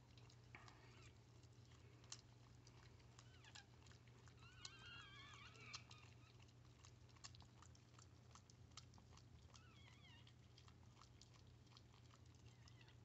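Chihuahua mother licking and chewing at a newborn puppy's birth membranes and placenta: faint, wet clicking mouth sounds. Thin, wavering squeaks come about five seconds in and again around ten seconds, the newborn puppy crying.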